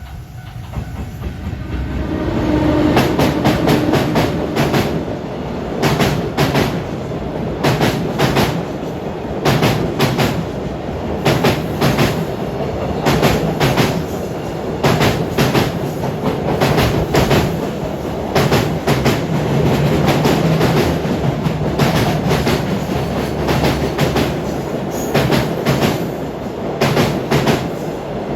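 Long train passing close by: the sound builds over the first couple of seconds, then its wagons' wheels clack steadily over the rail joints for the rest of the run. The long unbroken passing fits a long freight train.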